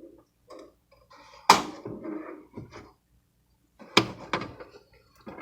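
Kitchen clatter of a pot and utensils being handled at the stove: a sharp knock about a second and a half in, two more in quick succession near the four-second mark, with softer clinks and scrapes between.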